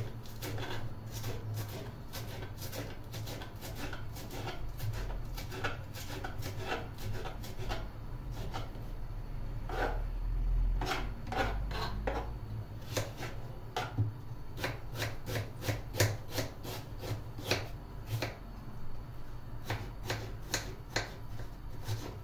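Kitchen knife chopping fresh garlic and then an onion on a wooden cutting board: a long run of quick blade taps on the board, dense at first and more spaced out later.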